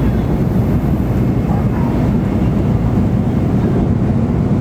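Steady low rumble of an N700 series Shinkansen train running at speed, heard from inside the passenger cabin.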